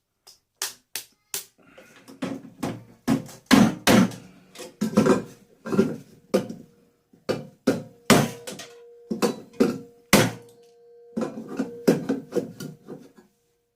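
A hammer striking metal parts of a microwave being stripped for scrap, about twenty irregular heavy blows. In the second half a struck metal part rings with a steady tone between the blows.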